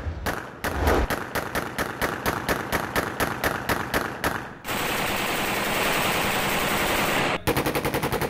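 Automatic gunfire fired into the air: a long run of evenly spaced shots, about five a second. After that comes a few seconds of steady rushing noise, and then a faster burst near the end.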